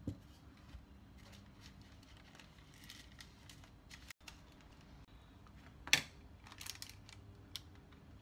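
Kitchen handling sounds: a metal baking tin set down on a silicone mat with a short thump, then light rustling of parchment paper and small clicks as pieces of bread dough are placed in the tin. A sharp knock about six seconds in is the loudest sound.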